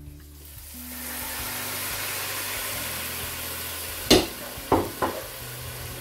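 Water poured into a hot pot of rice and vermicelli fried in butter and oil, hissing and sizzling as it hits; the hiss swells about a second in and holds steady. About four seconds in come three sharp knocks, the first the loudest.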